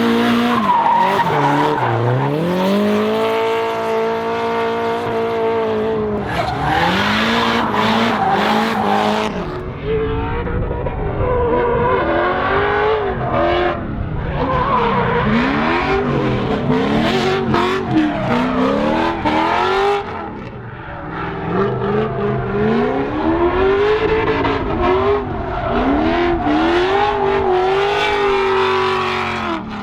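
Drift cars' engines revving up and down hard, the pitch rising and falling over and over, with tyre squeal and skidding noise underneath.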